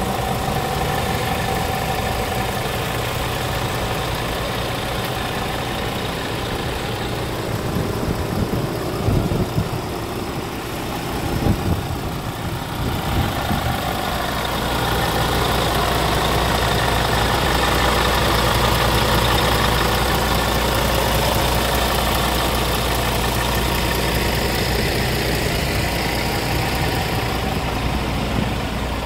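Scania R450 tractor unit's 13-litre straight-six diesel engine idling steadily. There are a few irregular low thumps around the middle, and from about halfway on the low hum is steadier and slightly louder.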